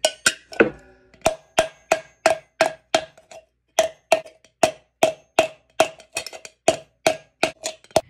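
Rubber mallet striking a tin can fitted over the knurled end of a barbell bar, about three blows a second with a short pause a little before halfway. Each blow gives a brief metallic ring from the can. The blows stretch the can's bottom into a dome and push out its grooves.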